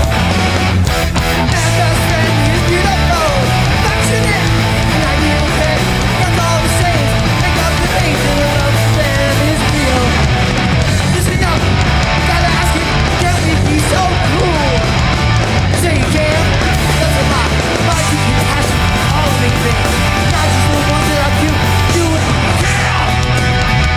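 Live hardcore punk band playing loud and fast, with distorted electric guitars, bass and drums.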